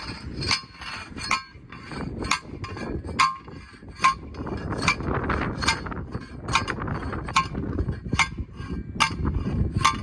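Handheld steel post driver slammed down onto a steel fence post: about a dozen sharp metallic clanks, a little more than one a second, as the post is driven into the ground. Wind rumbles on the microphone underneath.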